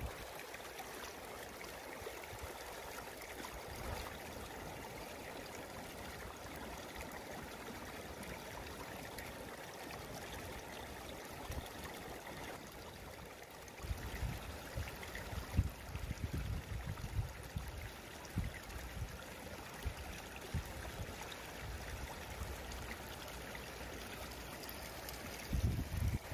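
Seawater trickling steadily. About halfway through, low rumbling handling noise from fingers on the phone's microphone comes and goes.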